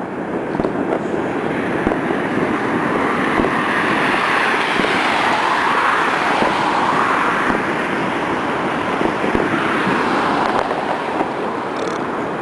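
A continuous dense rush of fireworks and firecrackers going off all around, blending into one steady noise that fills out a little in the middle.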